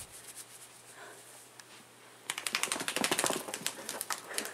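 A freshly bathed Italian greyhound moving about: a quick flurry of rapid rattling clicks lasting about a second, starting about halfway in, with only faint rustling before it.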